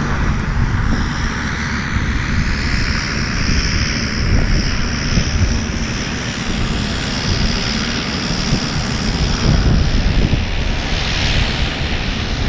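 Paramotor engine and propeller running steadily, with a loud rumble and a higher whine over it.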